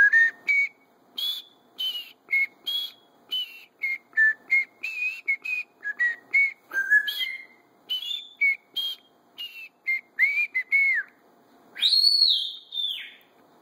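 Timneh African grey parrot whistling a quick run of short, sliding notes, with a longer swooping whistle about twelve seconds in.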